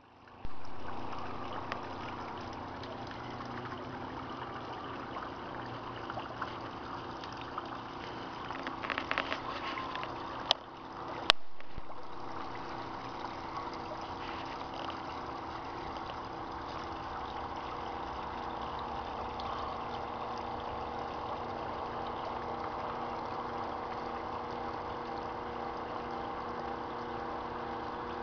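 Small garden waterfall splashing and trickling over stacked flagstones into a pond, a steady rush of water. A few knocks, then one sharp click, come about nine to eleven seconds in.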